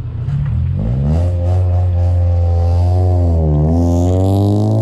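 Scion tC's four-cylinder engine revved and held at a loud, steady drone, its pitch dipping briefly about three and a half seconds in and then climbing back.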